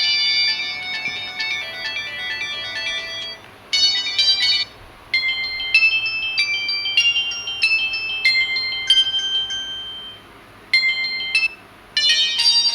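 Samsung GT-E1150 mobile phone playing its built-in ringtones: short electronic melodies of several notes at a time, one tune after another, with brief breaks between them.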